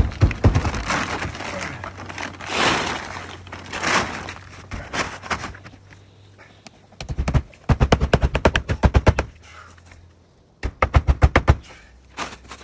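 Hammer driving nails through a plastic tarp into a wooden coop frame: quick runs of rapid blows, the longest about halfway through and another near the end.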